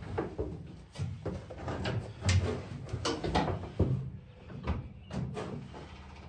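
Irregular clunks and clicks of hands handling metal parts and controls in the M29 Weasel's steel hull, several knocks spread through, over a steady low hum.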